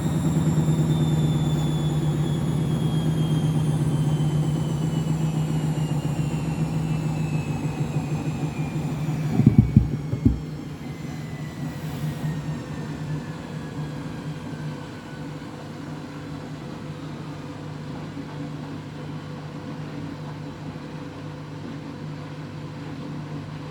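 Front-loading washing machine winding down from its 1200 rpm final spin: the drum rumbles and the motor's whine falls steadily in pitch. A few loud knocks come about ten seconds in, after which the machine settles to a quieter hum.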